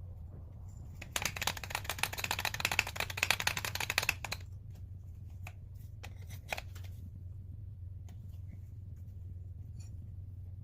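A rapid run of clicks lasting about three seconds, then a few single clicks, over a steady low hum.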